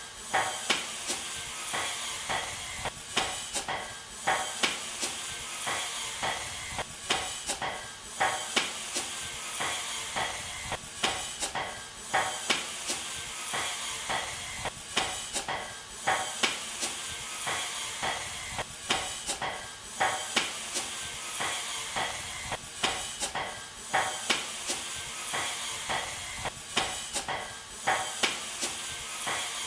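Hammer or mallet blows knocking on a timber frame, a couple of sharp knocks a second, often in clusters, over a steady hiss.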